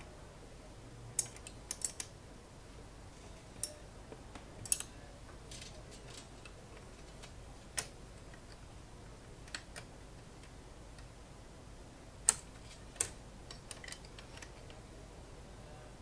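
Irregular sharp clicks and light clacks of small typewriter parts being handled and fitted during carriage reassembly of an IBM Wheelwriter, about a dozen in all, the loudest about twelve seconds in.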